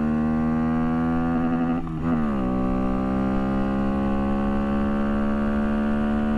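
Honda Monkey's 125 cc single-cylinder four-stroke engine, with an aftermarket camshaft and reflashed ECU, pulling hard under acceleration with its pitch climbing. About two seconds in the sound turns briefly choppy and dips as the revs top out at the raised rev limiter. The pitch then drops slightly and climbs steadily again.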